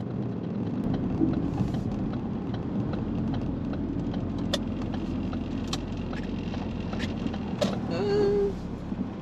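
Steady road and engine noise heard inside a moving car's cabin as it slows and turns in, with a few sharp clicks in the second half and a short pitched tone near the end.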